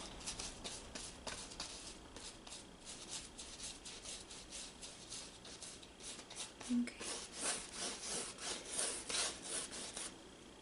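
Flat brush stroking acrylic paint across a canvas, a steady run of short scratchy back-and-forth strokes that grow louder about seven seconds in.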